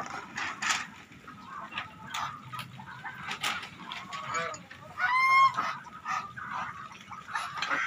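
A mixed flock of domestic geese, Muscovy ducks and chickens making brief scattered calls and short sharp noises. One loud goose honk comes about five seconds in.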